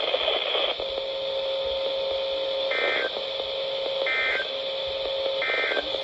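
Weather radio receiver's speaker playing a hissy gap in the NOAA Weather Radio broadcast between the end of the weekly test and the return to regular programming. A steady tone sets in under a second in, broken three times by short higher-pitched chimes about a second and a half apart.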